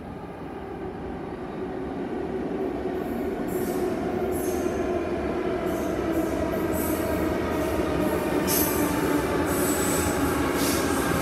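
Two coupled Tangara electric train sets arriving at an underground platform. The sound gets steadily louder as they approach and run alongside, with a droning tone and, from about three seconds in, repeated high screeching from the wheels on the curved track.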